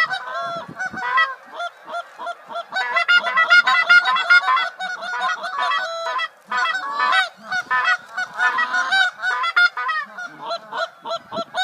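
A large flock of geese honking: many calls overlapping in a continuous din, growing thickest about three seconds in and again near nine seconds.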